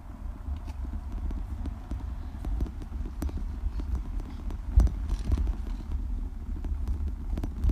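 Bicycle and its mounted camera rattling over brick paving, with irregular sharp knocks over a steady low wind rumble on the microphone.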